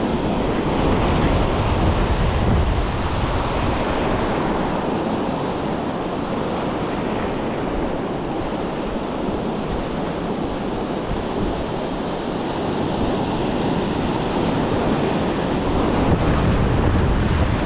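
Wind blowing across the microphone, over a steady wash of sea water.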